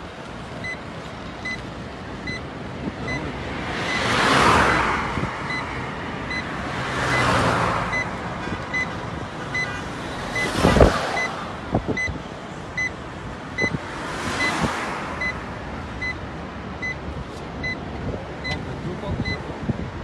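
Road traffic: four vehicles pass one after another, each a whoosh that rises and fades, about three to four seconds apart, with a short thump near the middle. A faint high beep repeats a little more than once a second underneath.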